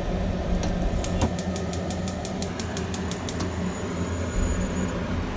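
Gas stove burner's igniter clicking rapidly, about six clicks a second for roughly two and a half seconds, as the burner is lit under the soup pot. A steady low hum runs underneath.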